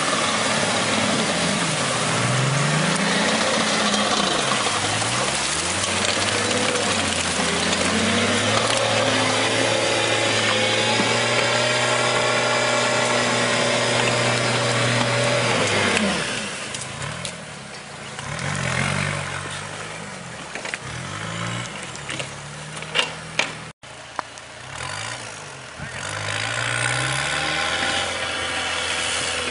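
Tracked all-terrain vehicle's engine revving up and down under load, held at a steady pitch for a few seconds. After about halfway it turns quieter and more distant, still rising and falling, with a couple of sharp knocks.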